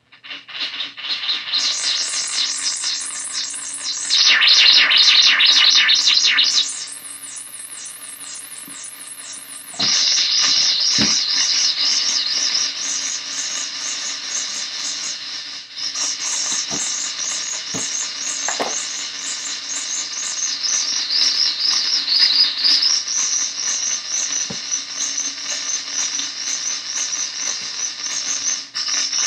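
Harsh, noisy analog synth drone from an Arturia MicroBrute cross-patched with a Casper Electronics Nova Drone, played through a small bass practice amp. It is a high-pitched buzzing texture that jumps abruptly to a new level and pitch every few seconds, with a few brief low downward zaps in the second half.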